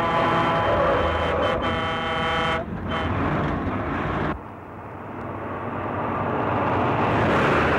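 A truck air horn sounds one long held blast over the running of heavy trucks, an Iveco Turbostar and a Scania 142, stopping about two and a half seconds in. Engine and road noise carries on, drops suddenly about four seconds in, then grows steadily louder towards the end.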